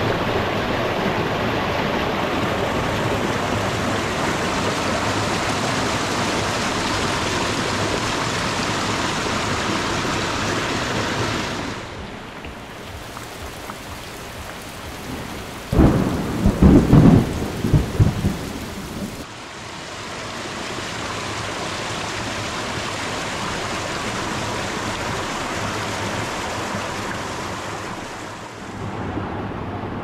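Water spilling over a small weir in a steady rush; after a cut, rain falls on a lake and a loud burst of thunder lasts a few seconds about halfway through. Then a steady rush of water returns, and a shallow stream runs over pebbles near the end.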